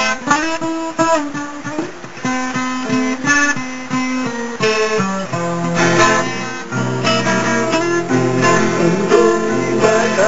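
Acoustic guitar played solo, a picked melody over bass notes, as the instrumental introduction to a sertanejo raiz song.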